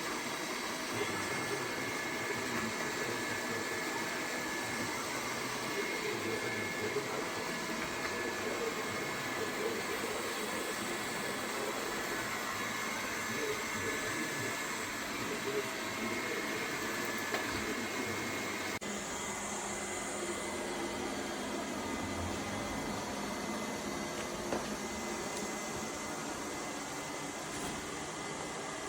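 Lefant M210 Pro robot vacuum running: a steady whir of motor and brushes with a thin high whine over it. The sound changes abruptly about two-thirds of the way through.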